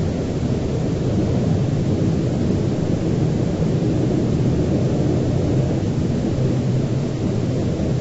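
Steady, loud low rumbling noise, a dark ambient drone with no tones or sudden sounds.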